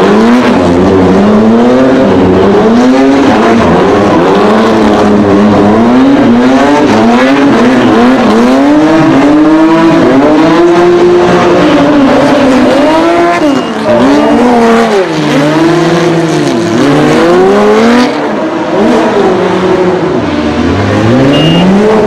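Porsche 911 SC rally car's air-cooled flat-six engine revving hard and dropping back over and over, about every second or two, as the car spins donuts, with tyres squealing.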